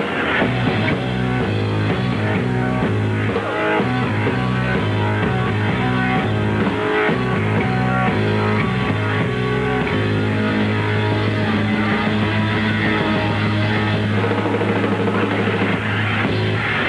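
Rock band playing live: keyboard chords over a heavy low bass line, changing in even steps for about ten seconds, then settling into one long held chord.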